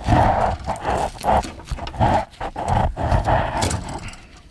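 Adhesive tape being peeled off a copper brake pipe in several short noisy pulls, with low knocks from handling, dying away near the end.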